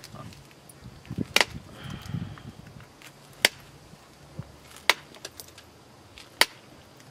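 A small stone preform being pressure-flaked against a leather pad, with four sharp clicks about a second and a half apart as flakes snap off the edge and a few fainter ticks between them.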